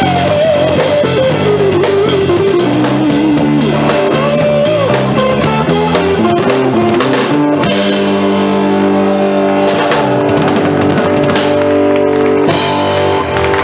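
Live rock band: electric lead guitar playing bending solo lines over drums and bass guitar. From about halfway through, the band holds a long sustained chord with cymbal hits as the song winds down to its end.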